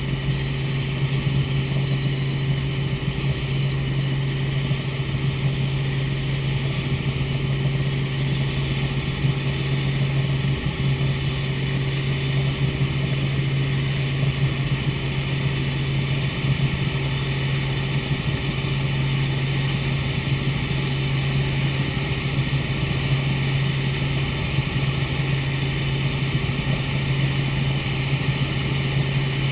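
Robinson R44 Raven II helicopter in flight, heard from inside the cabin: the steady drone of its six-cylinder Lycoming engine and rotors, a strong low hum that holds constant throughout.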